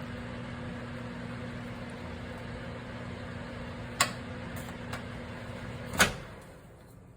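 A steady hum and hiss from a pan of food cooking on a cooktop, with two sharp metal clanks of a utensil against the pan about two seconds apart. The second clank is the louder, and after it the hiss fades away.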